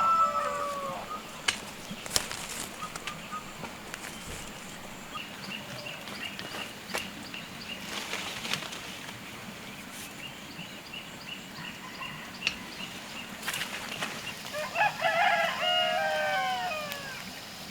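A rooster crowing twice: the end of one crow just as it begins and a full crow near the end. Scattered sharp knocks and rustles, and a faint rapid high chirping, fill the gap between.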